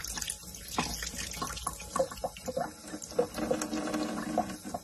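A faucet running a thin stream of water into a sink, with irregular short splashes and ticks as a cat laps at the falling water.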